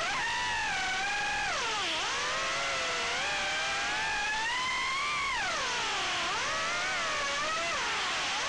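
BetaFPV HX115 3-inch micro quad's brushless motors and two-blade props whining on a 4S pack, heard through the onboard camera. The pitch slides up and down continuously with the throttle and dips sharply twice.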